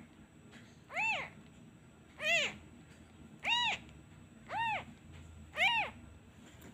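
Very young kitten meowing repeatedly, five high cries about a second apart, each rising then falling in pitch: the cries of an abandoned kitten calling for its mother.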